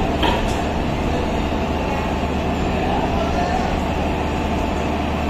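Steady low hum and rumble of a standing WAG-7 electric locomotive, its cooling blowers running, with one short knock just after the start.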